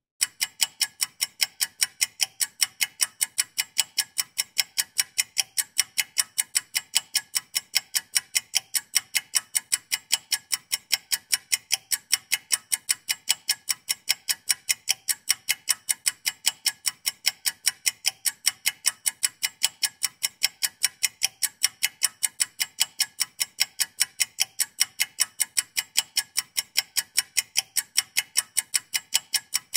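Clock ticking sound effect marking a 60-second countdown timer: sharp, even ticks about twice a second.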